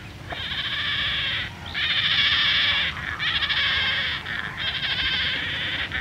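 Painted stork fledglings calling: four long calls, each a little over a second, following one another with short breaks between.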